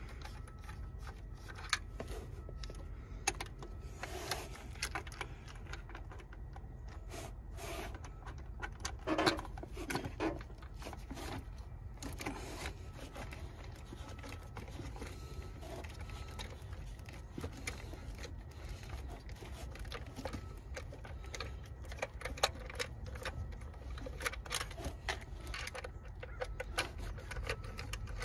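Scattered clicks, ticks and scrapes of hand work on the intake: a ratcheting screwdriver at the hose clamp and the rubber intake air duct being pushed and twisted onto the throttle body. A steady low rumble lies underneath.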